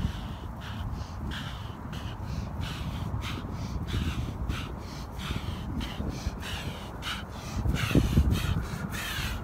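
A man panting hard from the exertion of a bear crawl, quick breaths about twice a second, over a low wind rumble on the microphone. There is a loud thump about eight seconds in as he reaches the camera.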